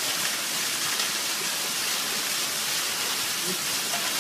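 A steady, even hiss, like rushing water or static, with no change in level.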